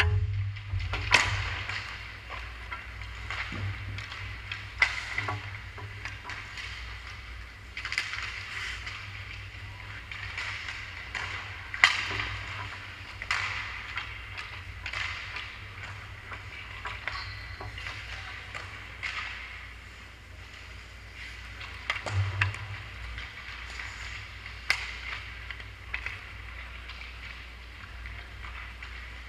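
Hockey skates scraping and carving on rink ice, with sharp clacks and knocks from sticks and pucks scattered through, the loudest about a second in, near twelve seconds and around twenty-two seconds.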